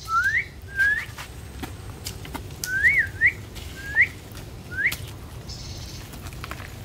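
A series of short, clear whistled notes, each sliding upward, about six in five seconds, one of them dipping and rising again. Faint knocks of stones being set in place sound beneath them.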